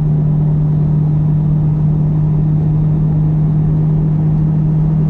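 Car driving at a steady highway speed: a constant low drone of engine and road noise with a steady hum.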